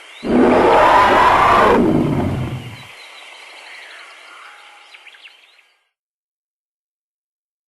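Dinosaur roar sound effect: one loud, rough roar lasting about two and a half seconds and dropping in pitch as it trails off, over a forest background with bird chirps that fades out, leaving silence.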